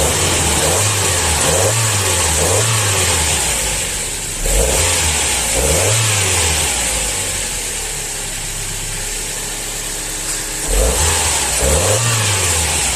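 Toyota Noah petrol engine blipped through a series of short revs, each rising and falling back to idle, with a lull in the middle and two more revs near the end. The engine is running on freshly fitted spark plugs, revved to check for the pinging caused by ignition current leaking from the old plugs.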